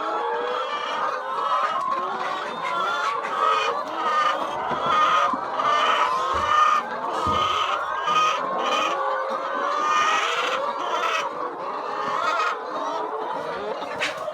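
A flock of chickens clucking and calling together, many calls overlapping throughout.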